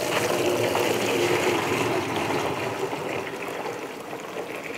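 Liquid poured in a steady stream from a plastic pitcher into a bucket, splashing into the liquid already there. The pour is strongest at first and slowly tapers off.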